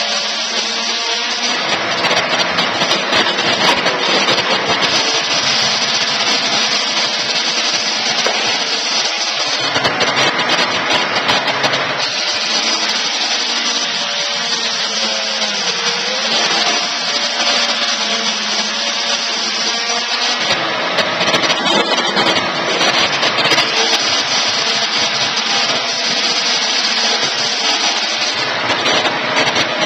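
Portable electric sawmill running and cutting timber: continuous loud machine and sawing noise that grows harsher in two long stretches and eases somewhat between them.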